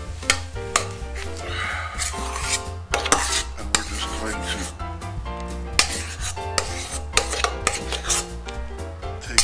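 Dishes and utensils clinking and scraping as whipped cream is scooped out of a metal mixer bowl into a ceramic bowl, many short sharp clicks, over background music with a steady bass line.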